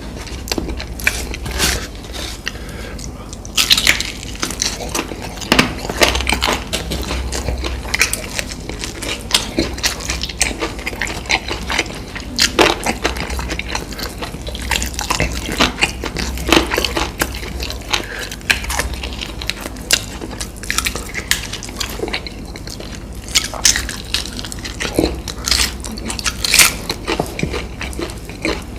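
Close-miked eating sounds: irregular crunching and wet chewing of fast food, with frequent sharp crackles and mouth smacks.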